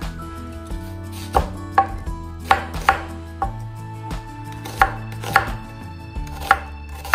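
A chef's knife chopping an onion on a wooden cutting board: a series of sharp, irregularly spaced knocks, about eight of them.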